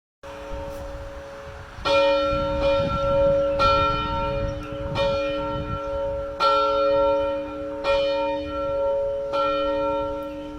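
A church bell being rung: six strokes about a second and a half apart, the first about two seconds in, each ringing on into the next. Before the first stroke, the hum of the previous stroke is still sounding.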